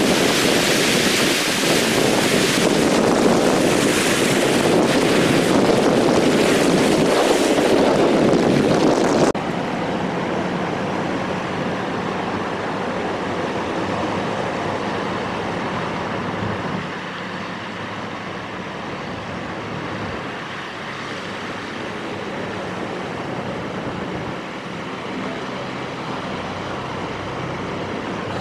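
Car driving through deep floodwater, water rushing and spraying against it loudly; about nine seconds in it cuts off suddenly to quieter traffic, cars splashing through the flooded road further away.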